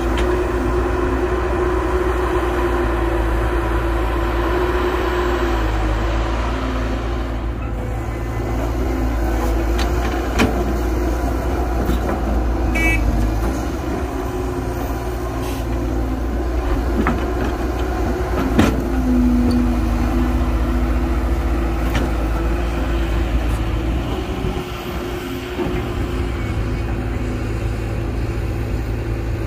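Heavy diesel engines of an excavator and dump truck running steadily, with a few sharp knocks.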